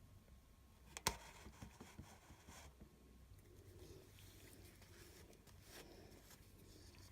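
Near silence: room tone with a low steady hum, broken by one sharp click about a second in and a few faint soft rustles.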